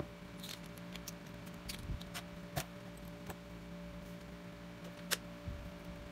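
A handful of short, sharp clicks, irregularly spaced and the loudest about two and a half and five seconds in, over a steady low electrical hum.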